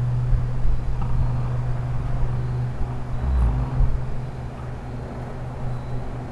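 A Traxxas K5 Blazer radio-controlled truck's electric motor and drivetrain running as a steady low hum, with a brief deeper rumble a little past three seconds in.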